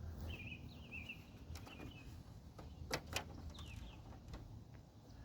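Birds chirping faintly, with a few sharp clicks, about two to three seconds in, from a plastic side marker lamp being unclipped and handled.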